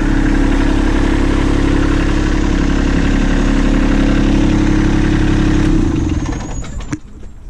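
Kubota B2650 tractor's three-cylinder diesel engine idling steadily, then shut off about six seconds in, winding down to a stop with a click near the end.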